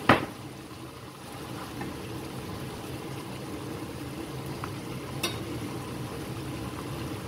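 Tomato and chili sambal bubbling steadily as it simmers in a steel frying pan. A sharp knock right at the start.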